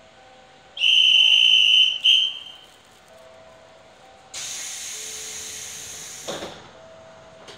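A conductor's whistle: one loud, steady, high blast of about a second, then a short second blast. A few seconds later comes a burst of compressed-air hiss from the 721-series train's pneumatic doors, lasting about two seconds and ending in the thud of the doors shutting.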